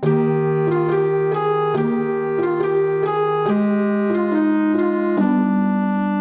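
Background music: a keyboard melody of sustained notes, changing every half second or so.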